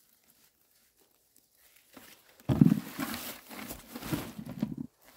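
Thunder: a loud rumble that breaks out suddenly about halfway through, rolls unevenly for about two and a half seconds, then stops abruptly.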